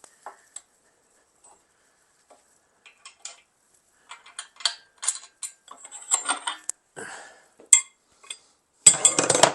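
Metal tools and engine parts clinking and knocking in scattered, irregular strikes during the teardown of a 13B rotary engine, with a denser, louder clatter near the end.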